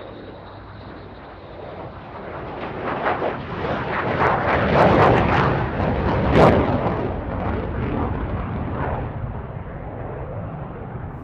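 Jet aircraft passing, its noise swelling to a crackling peak about five to six seconds in, then fading.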